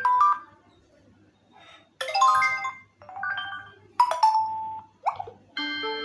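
Redmi Note 10S notification tones previewed one after another: about six short electronic chimes and jingles, each under a second long, with brief quiet gaps between. One near the end is a quick rising blip.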